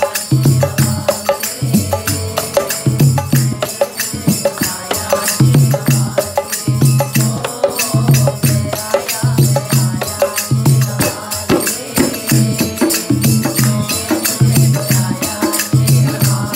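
Portable electronic keyboard playing a Hindu devotional song over a steady rhythm, with a repeating bass line and a jingling, tambourine-like beat.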